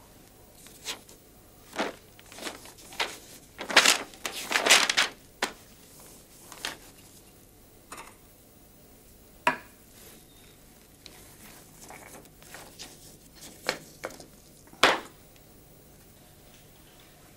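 Paper notebook being handled and its pages turned on a desk: irregular rustles and light knocks, busiest about four to five seconds in, with a few sharper single taps later.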